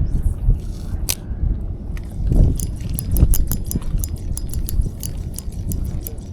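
A fishing reel clicking in a rapid, irregular run of sharp ticks from about two and a half seconds in, over a low rumble.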